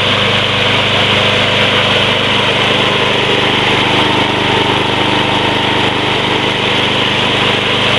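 Snapper Big Six push mower's 6 hp Briggs & Stratton engine running at a steady, even speed.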